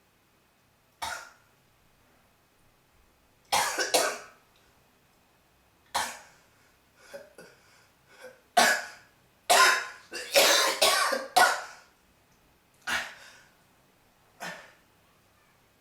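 A person sneezing and coughing over and over from pepper: about a dozen short, sharp bursts. They come thick and fast around the middle, then thin out.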